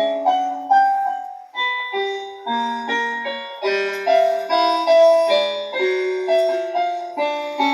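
Piano-like keyboard music: a melody and chords of struck notes, each fading after it sounds, about two to three notes a second, with no deep bass.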